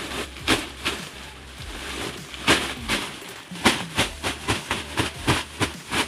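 Repeated thuds and crunches of a heavy sack pounded down onto lumps of dried cow manure on a concrete floor, crushing them. A few spaced blows come first, then a quicker run of about three a second in the second half.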